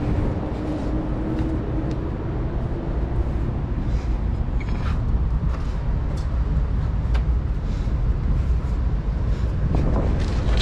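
Steady low rumble with a few faint clicks, of the kind made by traffic or wind on the microphone.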